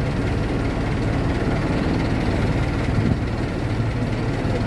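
Boat engine running steadily, heard from aboard the moving boat as a low, even drone.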